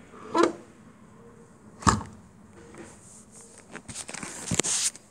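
Handling noises of a hand on a car's painted body panel: a sharp knock about two seconds in, then a rustling, scraping patch with a couple of clicks near the end.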